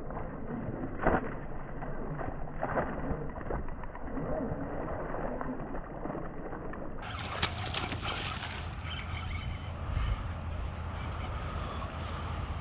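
A hooked largemouth bass thrashing and splashing at the surface during the fight, with a few sudden splashes. The sound is dull and muffled for about the first seven seconds, then turns clearer, with light clicks near the end.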